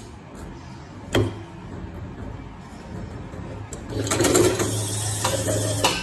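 Samsol sewing machine stitching in one burst of about two seconds, with a steady hum and rapid clatter, starting about four seconds in and stopping just before the end. A single sharp click about a second in.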